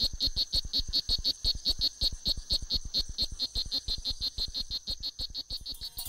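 Male strawberry poison frogs calling: a fast, even train of short chirps, about seven or eight a second, over a steady high tone. It is the males' call, made to attract mates and to ward off rival males.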